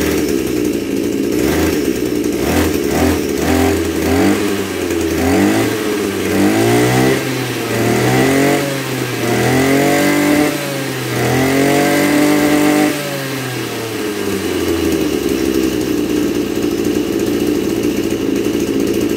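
Maruyama KC230RS-1 brush cutter's 23cc two-stroke engine idling, then revved several times with the throttle trigger, each rev climbing and falling back, the later ones held longer. It drops back to a steady idle for the last few seconds.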